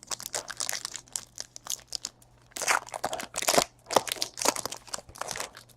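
Plastic trading-card pack wrapper being torn open and crinkled, a run of irregular crackles.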